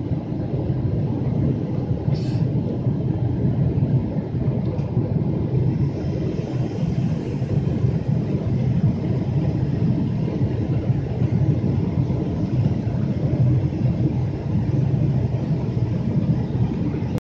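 Jet airliner cabin noise in flight, heard inside the cabin at a window seat beside the engine: a steady low rumble, with a brief click about two seconds in. It cuts off abruptly near the end.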